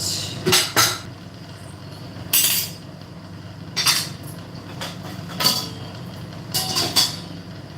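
Kitchen vessels and utensils being handled and set down: a handful of separate clanks and clinks a second or so apart, over a steady low hum.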